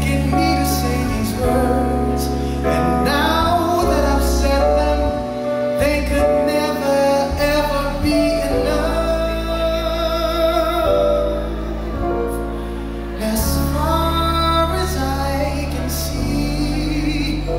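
Live R&B ballad: a male singer holds long notes with vibrato over keyboard and violin accompaniment.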